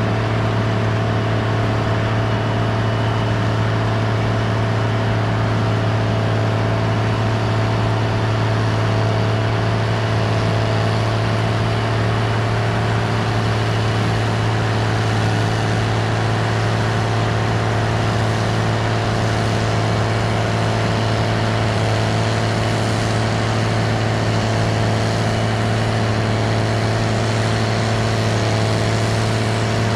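Large farm machine's diesel engine running steadily under load, a deep constant drone with a steady higher whine over it.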